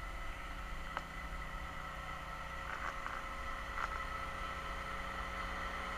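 Hoist winch motor running steadily as it lifts a person up the tower, a low hum with a few steady whining tones and a few faint clicks.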